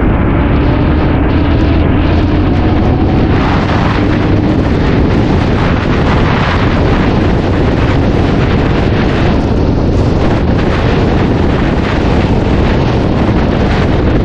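Heavy wind rushing over the microphone of a motorcycle ridden at speed, with a steady engine note under it for the first few seconds that then fades into the wind.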